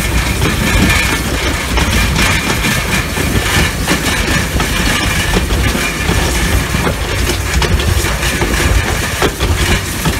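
Steam locomotive under way, heard from the cab: a steady loud rumble and rattle, with irregular clicks from the wheels on the rails.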